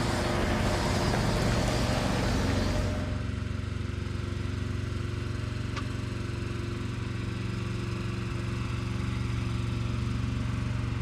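A heavy diesel engine running steadily at a low, even speed, with a broad rushing noise over the first three seconds that then falls away.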